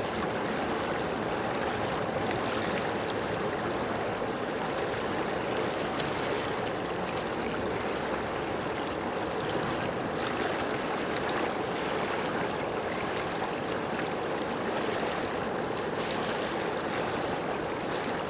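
Running water rushing steadily and evenly.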